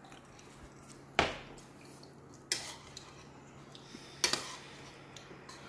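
Three sharp clinks of tableware: a drinking glass and a metal spoon and fork knocking against the dishes while eating.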